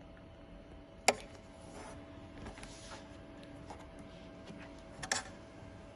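Dematron DM-9820 industrial keyhole buttonhole machine with a faint steady hum and two sharp mechanical clicks about four seconds apart; the first click is the loudest.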